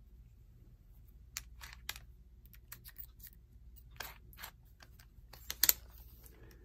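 Scattered light clicks and taps of a cordless drill and its bits being handled while the bit is swapped for a smaller one, with two sharper clicks close together near the end.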